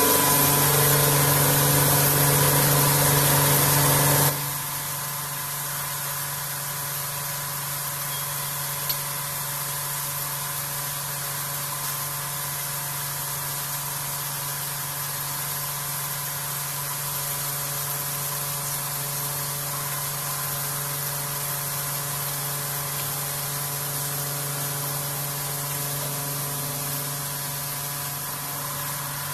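Vertical machining centre running during face milling of aluminium: a loud steady hiss over several steady machine tones cuts off suddenly about four seconds in, leaving a quieter steady hum with the same tones and a single click.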